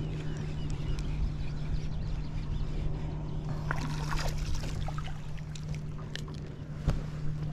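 Water sloshing against a small boat's hull over a steady low hum, with a cluster of short splashes and clicks about four seconds in as a hooked crappie is reeled to the surface, and a single thump near the end.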